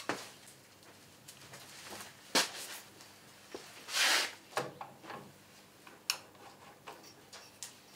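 Light knocks and clicks of metal handling as a dial test indicator on its stand is picked up and set on a lathe carriage, ready to check the spindle for runout, with a brief rustle about four seconds in.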